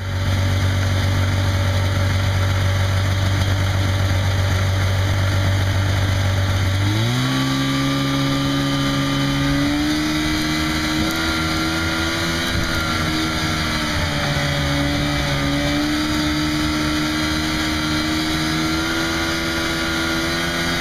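Snowmobile engine running steadily, then stepping up to a higher engine speed about seven seconds in and holding there with small wavers in pitch.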